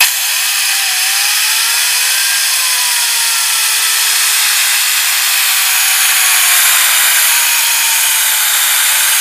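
Compressed air from an air-compressor hose blasting into a plastic impeller wheel: a loud, hissing rush of air that starts suddenly, with a whine from the spinning wheel that rises in pitch over the first couple of seconds and then slowly sinks.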